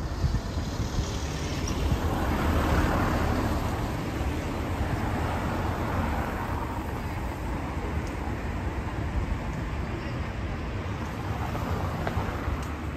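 Road traffic noise, swelling as a vehicle passes about two to three seconds in, then settling back to a steady rumble.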